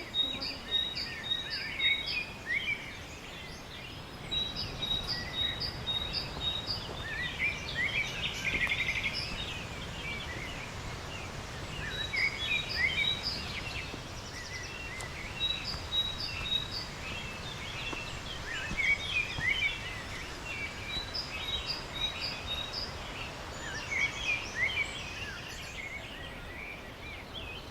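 Several songbirds singing, with repeated runs of short, evenly spaced high notes and scattered chirps, over a steady low rushing background.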